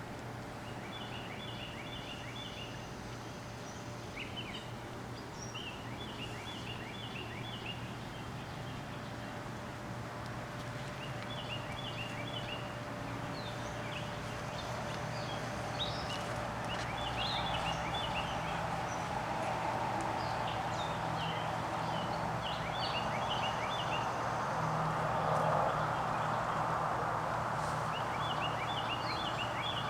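A bird singing: short bursts of rapid, high chirping notes repeated every few seconds, over a steady low hum. A hiss swells in the second half.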